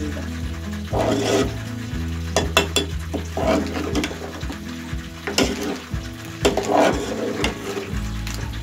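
Metal ladle stirring potatoes and masala in a metal pot, with several sharp scrapes and clinks against the pot, over background music.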